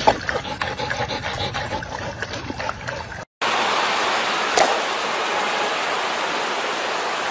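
A dog lapping and splashing water from a metal bowl. After a brief gap comes a steady rushing noise, with one sharp crack partway through as bighorn rams clash horns.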